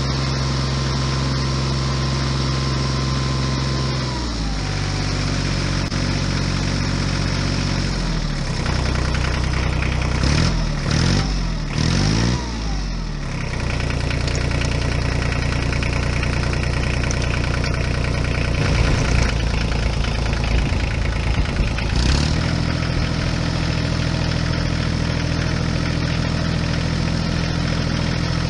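Tractor engine sound idling steadily, its revs dropping about four seconds in, rising and falling several times in the middle, and swinging briefly once more a few seconds later.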